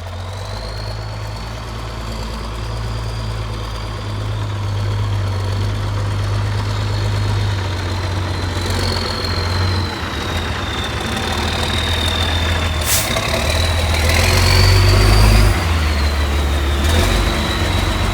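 Heavy farm vehicle engine running steadily, with a thin high whine that wavers slightly in pitch; it grows louder toward the end.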